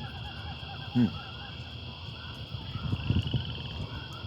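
Birds chirping repeatedly over a steady high insect-like drone, with one short loud sound falling in pitch about a second in.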